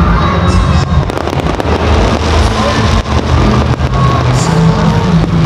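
Fireworks display: many sharp bangs and crackles, spaced irregularly, over a heavy, loud low rumble.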